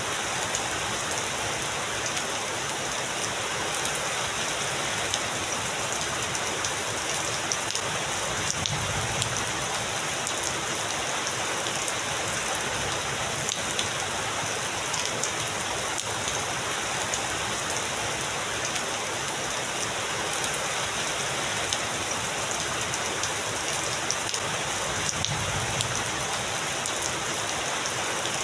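Heavy rain falling steadily, a dense even hiss of drops, with two faint low rumbles of distant thunder, about a third of the way in and near the end.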